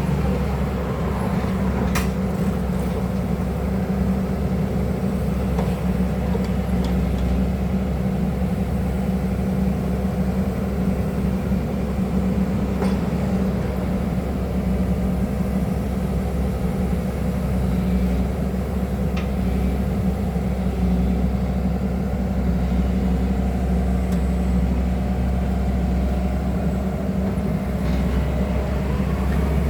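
Excavator diesel engine running steadily under working load, a deep even drone. A few faint clicks or knocks sound about 2 s in, mid-way and near the end.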